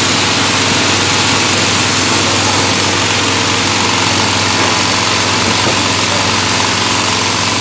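Small stationary diesel engine running steadily, driving a compost chopper machine.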